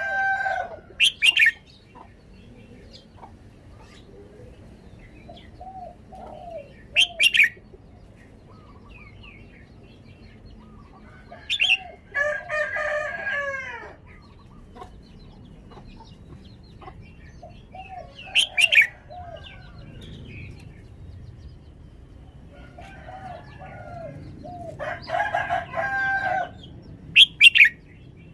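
Red-whiskered bulbul singing in short, sharp, bright phrases, repeated every few seconds. Between them come quieter chirps, and twice a longer, lower call.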